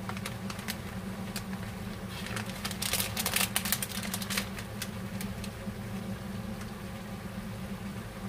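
Clear plastic bag of dried chili flakes crinkling as it is handled, in quick clusters of sharp crackles that are thickest about three seconds in, over a steady low hum.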